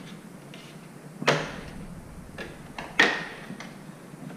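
Plastic retaining clips of a TRD Pro grille insert snapping into a Tacoma grille shell as they are pressed home: two sharp snaps about a second and a half apart, with fainter clicks between them.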